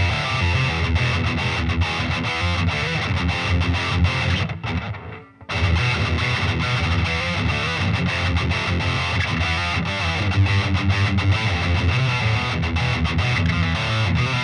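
Distorted electric guitar, a Solar A1.7D LTD played through a Peavey Vypyr 60-watt combo amp, riffing in quick picked notes. The playing stops briefly about four and a half seconds in and picks up again about a second later.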